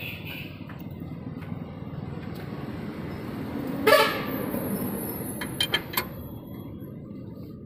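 A vehicle horn gives one short toot about four seconds in, the loudest sound, over a steady low rumble. Near the end come a few sharp metal clicks from the steel bar turning the screw jack under the tractor axle.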